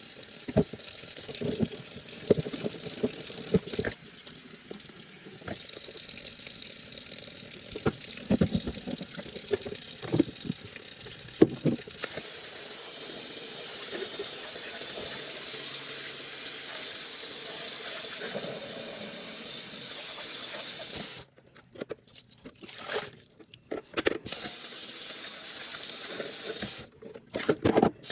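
Tap water running into a sink while vacuum cleaner parts are rinsed under it, with scattered knocks of plastic being handled. Near the end the sound cuts out and comes back several times.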